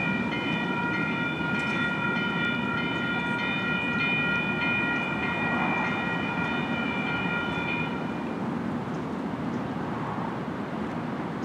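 Electronic railroad crossing bells ringing in a rapid steady ding, stopping together about eight seconds in, over the low rumble of a passing light rail train.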